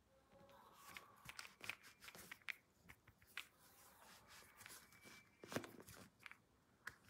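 Faint rustling with scattered small clicks, the loudest about five and a half seconds in.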